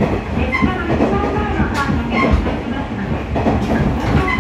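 KiHa 110 series diesel railcar running, heard from inside the passenger cabin: a steady rumble of engine and wheels on the rails, with scattered knocks and a few short high-pitched squeals.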